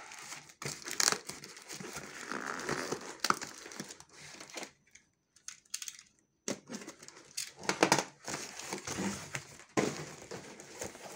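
Cardboard carton being cut open with a snap-off utility knife, then torn and crumpled by hand: irregular rustling, scraping and tearing, with a brief near-quiet pause about halfway through.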